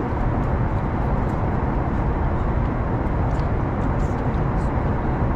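Steady rushing drone of a Boeing 737 MAX 8's cabin in flight, as heard from a window seat, with a few faint clicks of a spoon against a plastic food tub.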